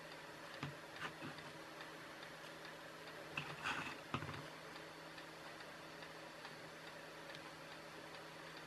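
Small clicks, taps and rustling from handling a small circuit board and a pen-style soldering iron during soldering, loudest for about a second just before the middle. Under them run faint, evenly spaced ticking and a steady low hum.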